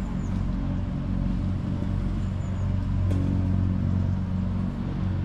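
Steady low rumble of a running motor vehicle, with a brief knock about three seconds in.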